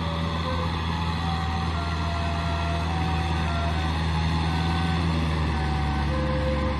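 Kubota M6040SU tractor's four-cylinder diesel engine running steadily while pulling a rotary tiller through a wet rice paddy.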